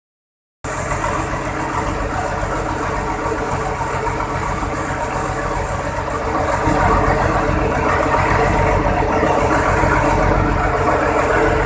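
Cummins VTA-28 V12 marine diesel engine running steadily on its first run after an overhaul, already going when the sound cuts in about half a second in. It gets a little louder after about six and a half seconds.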